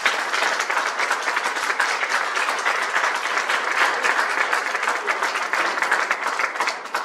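An audience applauding, many hands clapping steadily, dying away near the end.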